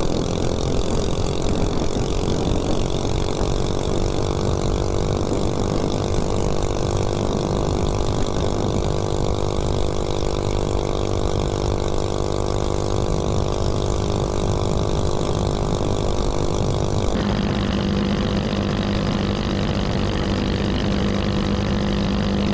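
Coleman CC100X mini bike's 179cc single-cylinder snowblower engine running hard with no exhaust pipe at near top speed, its pitch climbing slightly at first and then holding steady. About 17 seconds in, the tone shifts and a steady lower hum comes in.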